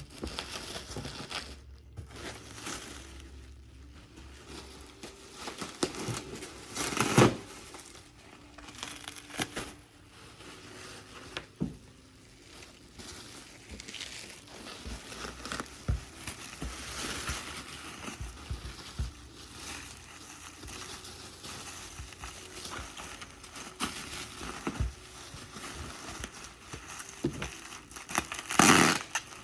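Packing material crumpling and rustling as it is handled, with scattered light knocks. Louder crinkling bursts come about seven seconds in and again near the end.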